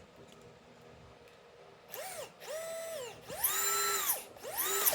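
Cordless drill/driver run in four short trigger pulls starting about two seconds in, its motor whining up to speed, holding, then winding down each time as it drives a threadlocked screw tight.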